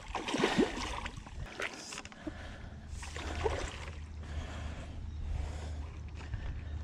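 A hooked fish splashing and thrashing at the surface as it is played close to the bank, in irregular bursts of water noise. A low steady rumble comes in about two seconds in.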